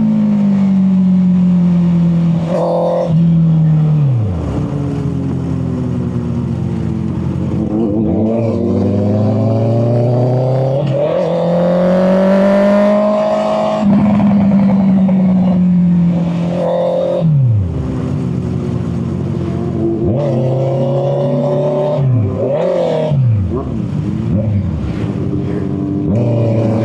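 Honda CB650R's inline-four engine under way, its pitch climbing and falling as the throttle is opened and closed, with several quick drops in revs at gear changes. Picked up by a microphone in the rider's back pocket.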